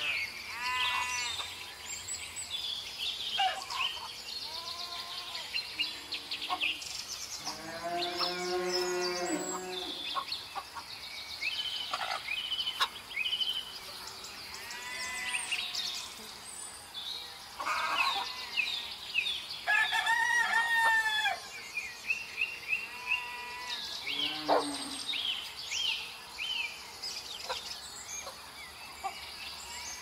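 Roosters crowing several times, the longest crows about 8 and 20 seconds in, with hens clucking and small birds chirping between them.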